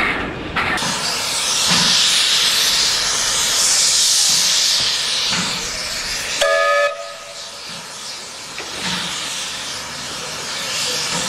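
Narrow-gauge steam locomotives standing with a loud, steady hiss of escaping steam. About halfway through there is one short whistle toot, and the hiss then carries on more quietly.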